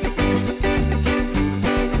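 Background music: an upbeat guitar-led track with a steady bass and beat.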